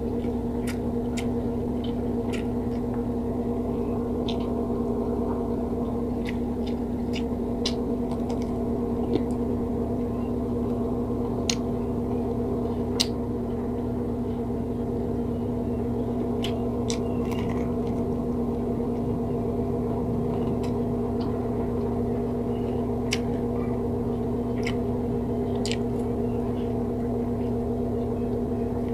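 Someone eating fried pork by hand, with scattered short crunches and mouth clicks as it is chewed. Under it runs a steady hum of a few fixed pitches.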